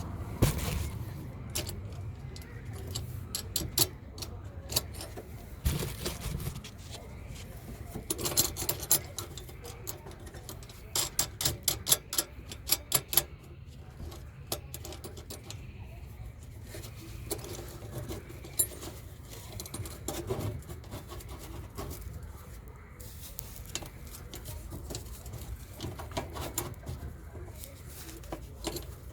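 Metal hand tools clinking and clattering against each other in short bursts, busiest about a third of the way in, over a low steady rumble.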